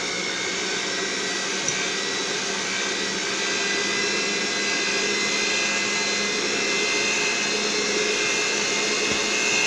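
Electric kitchen mixer running steadily at medium-low speed with a steady whine, beating butter and sugar together to cream them.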